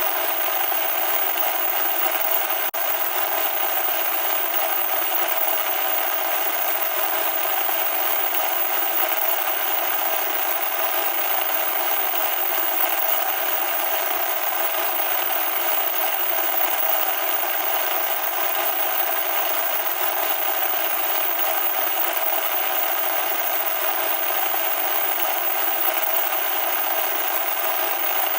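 Loud, steady, harsh static noise with no bass, unbroken except for a momentary drop about three seconds in.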